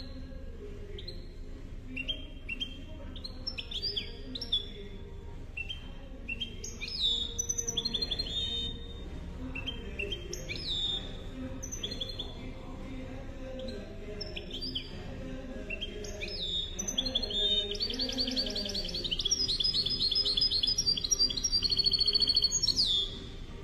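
Goldfinch × canary hybrid (a mule) singing: a string of short chirps and down-sliding whistled notes, building into fast rattling trills near the end that stop abruptly.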